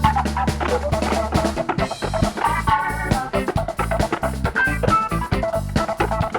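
Band music without vocals: a drum kit beating steadily under guitar chords and a low bass line.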